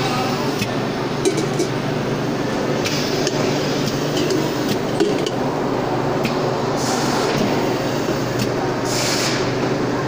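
Pad printing machine at work on stainless-steel electric kettle bodies: a steady machine hum with sharp metallic clinks, and short bursts of hiss every few seconds.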